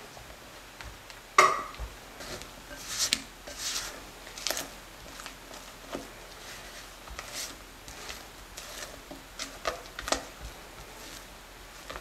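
Silicone spatula stirring flour into thick chocolate cake batter in a glass mixing bowl: irregular scrapes and light clicks against the glass, with one sharp knock about a second and a half in.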